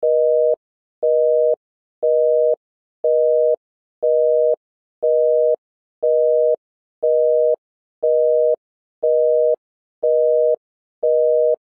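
Philippine telephone busy tone, signalling that the called line is engaged. A low two-note beep pulses evenly about once a second, half a second on and half off, twelve times.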